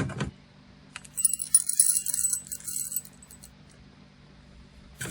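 A short knock, then about a second in whole coffee beans rattle into a small container for about two seconds as a bright, jingly patter, as about 11 grams of coffee are measured out.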